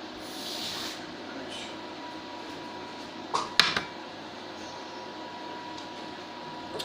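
Steady background hiss with a faint hum, broken by a short hiss in the first second and two sharp knocks about three and a half seconds in.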